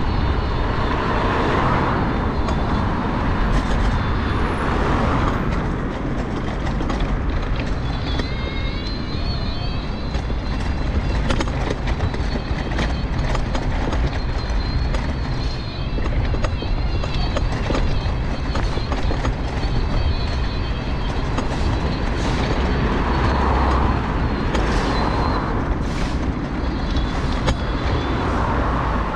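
Mobility scooter running along a pavement: a steady low rumble with a thin whine through the middle, and cars passing on the road alongside near the start and again near the end.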